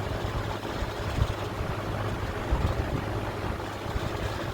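Late-1950s Markel 20-inch metal-bladed box fan running on high speed: a steady motor hum under an even rush of air. Its badge plate, loose with age, rattles, with a couple of brief knocks.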